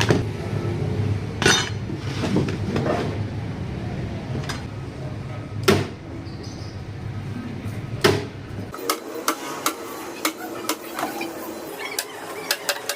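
Sharp knocks on wood: a few loud strikes several seconds apart, then a quicker run of lighter taps and clicks from about nine seconds in, while a low hum stops.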